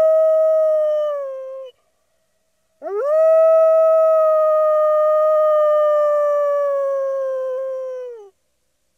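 Wolf howling: a long howl fades and drops in pitch about two seconds in, then after a short pause a second howl swoops up and holds one long, slowly falling note before dropping away near the end.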